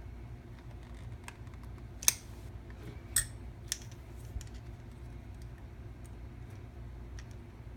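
Scattered sharp clicks and taps of a screwdriver and small metal parts being handled on a guitar effects pedal, with a few louder clicks about two and three seconds in, over a steady low hum.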